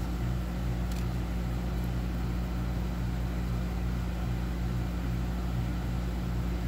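A steady low mechanical hum from a running machine, with a low throb that pulses evenly a few times a second, and a faint click about a second in.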